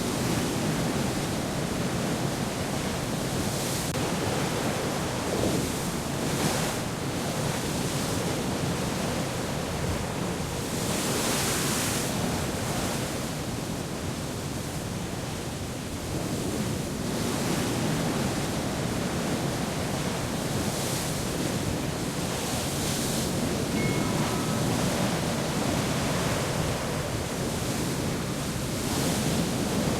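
Steady rushing of sea waves and wind, swelling and easing every few seconds, with a few faint short tones about two-thirds of the way through.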